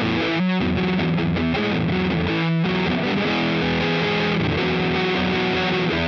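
Electric guitar played through a fuzz pedal, heavily saturated: short chopped chords with brief stops in the first half, then held notes ringing out.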